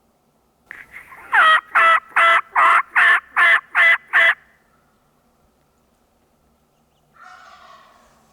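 A hand-worked turkey call sounding a run of eight loud, evenly spaced hen yelps, calling to a gobbling tom. Near the end a much fainter, shorter call follows.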